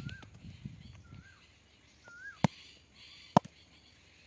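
A bird calling over and over, a short rising-and-falling note about once a second. Three sharp knocks, the loudest sounds, come at the very start, a little past halfway and near the end.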